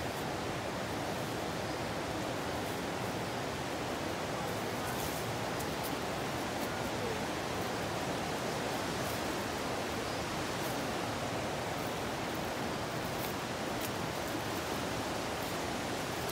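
Running water rushing steadily, an even, unchanging wash of noise.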